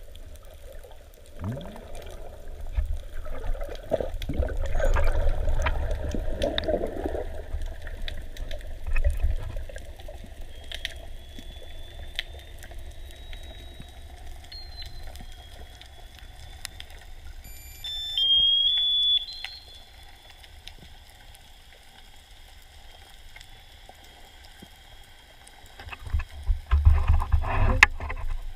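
Muffled underwater sound picked up by a camera in a waterproof housing: water churning and bubbling around it with bumps and rubbing on the housing, loudest at the start and again near the end. About two-thirds of the way through comes a short, loud, high tone.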